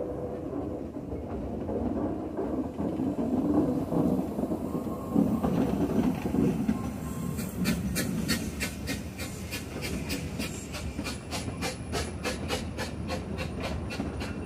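Corris Railway No.10, a narrow-gauge steam locomotive working hard uphill, passes close by: a dense, heavy rumble of exhaust and running gear at first. Then its carriages roll past with a rapid, regular clicking of wheels over the rail joints, and a thin high squeal comes in near the end.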